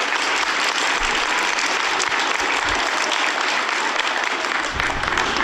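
An audience of schoolchildren and staff applauding, a steady, dense clapping.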